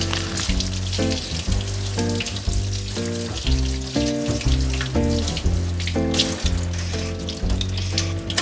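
Background music, a melody of short notes over a steady bass, over a kitchen tap running and water splashing into a stainless-steel sink as a carrot is rinsed under it.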